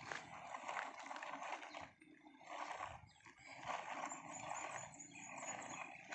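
Plastic toy dump truck pulled on a string over loose gravel, its wheels and body crunching and rattling on the stones in uneven swells, with short lulls about two and three seconds in.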